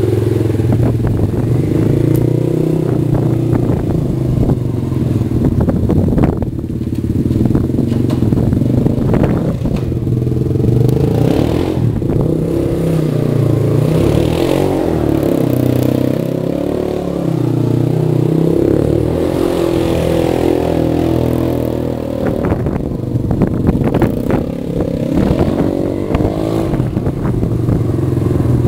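Suzuki LT-Z250 quad's single-cylinder four-stroke engine running and revving up and down as the quad is ridden around and slid on snow.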